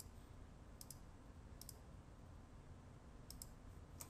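Faint computer mouse clicks, about four, each a quick double tick of button press and release, over quiet room tone.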